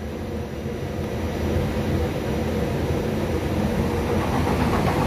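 Frecciarossa 1000 high-speed electric train approaching along the platform, its running noise growing steadily louder.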